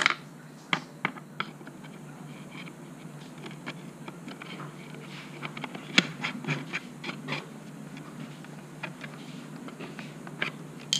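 Scattered small clicks and taps of a screwdriver turning a screw into a plastic motorcycle speedometer housing while the housing is handled, with one sharper click about six seconds in.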